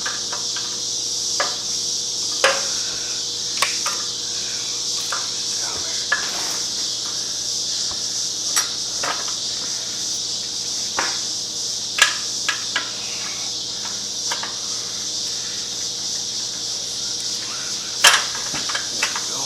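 Metal exhaust parts being worked into place by hand: irregular light clinks and knocks of a bracket and washers against the pipe, a dozen or so spread out, the sharpest two about twelve and eighteen seconds in. A steady high hiss runs underneath.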